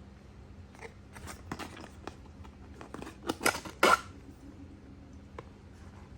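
Packaging and MagicBand+ bands being handled: a quick run of clicks, snaps and crinkles, loudest a few seconds in, then a few faint ticks.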